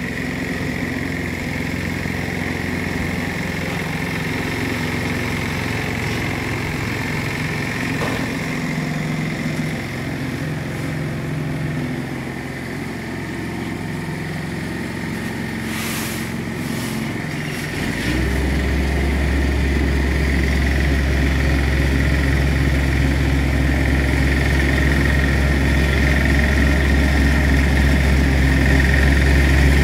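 Tipper truck's diesel engine idling steadily. About two-thirds of the way in, its note steps up to a louder, lower hum that holds. Just before, there are a few brief scrapes.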